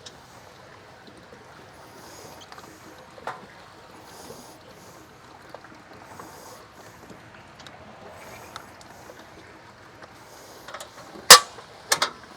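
Faint steady hiss with a few light ticks, then a loud sharp knock about eleven seconds in, followed quickly by two lighter knocks.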